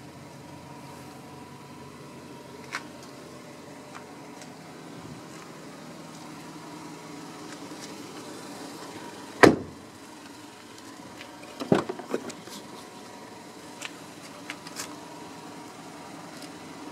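A car door shut with a solid thud about halfway through, then a quick run of latch clicks and knocks a couple of seconds later as a door is worked open, over a steady low hum.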